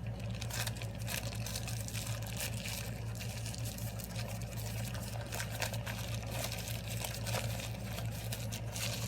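A person chewing a big mouthful of cooked rice, making irregular wet mouth clicks and smacks over a steady low hum.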